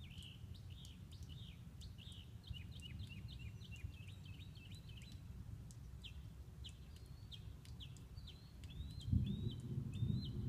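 Outdoor night chorus of short high chirps, two or three a second, repeating throughout over a steady low rumble that swells louder near the end.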